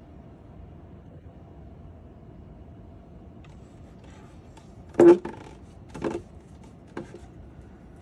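A quiet, steady low hum, then short, loud sounds about a second apart starting about five seconds in: two strong ones and a fainter third.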